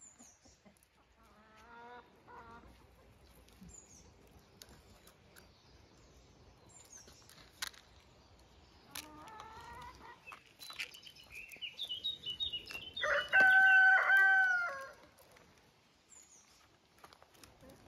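A rooster crows once, a long held call of about two seconds that is the loudest sound, just after a run of short, stepped high calls. Two shorter falling calls come earlier, over faint rustling and ticking on gravel.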